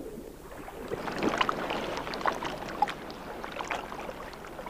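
Water sloshing and splashing, with irregular small clicks and crackles through it.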